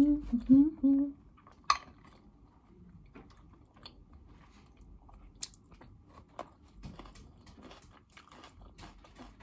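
A woman gives a closed-mouth hum for about the first second. She then chews a fresh cucumber-and-tomato salad close to the microphone, with soft crunching and scattered small clicks. The sharpest clicks come less than two seconds in and again about halfway through.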